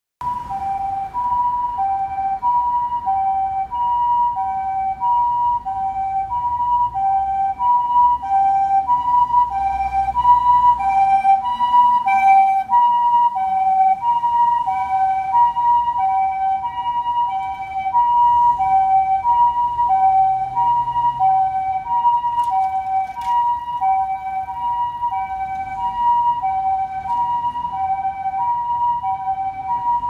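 Japanese ambulance's two-tone siren sounding the high–low 'pii-poo' pattern, each tone held about two-thirds of a second. A passing vehicle's engine rumbles underneath about ten seconds in.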